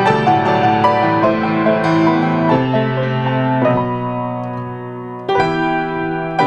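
Piano playing a slow instrumental piece, chords and melody notes struck and left to ring and fade; a fresh, louder chord is struck a little past five seconds in.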